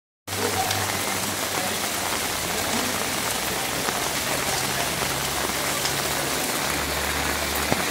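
Rain pouring down onto a flooded street, a steady hiss.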